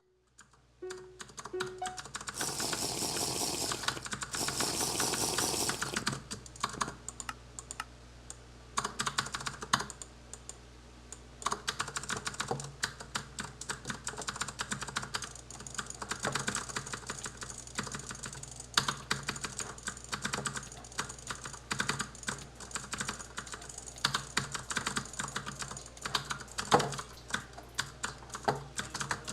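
Razer DeathAdder 2013 gaming mouse buttons clicking, many sharp clicks in quick runs, densest from about two and a half to six seconds in.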